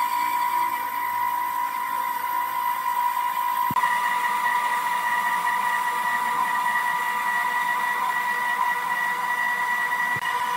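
Woodworking machinery running with a steady, high-pitched whine over a mechanical hum. The sound changes abruptly a little under four seconds in, then carries on much the same.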